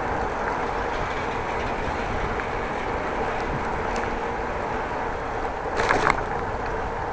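Steady rush of a bicycle being ridden fast, heard from a chest-mounted camera: wind on the microphone and tyre noise on the smooth path, with a brief rattle about six seconds in.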